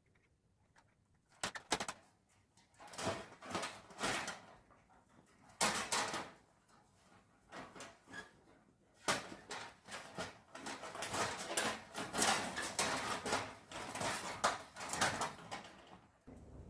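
A cat caught in a live cage trap, struggling: irregular bursts of rattling and scuffling with a few sharp clicks, starting about a second and a half in and running on until shortly before the end.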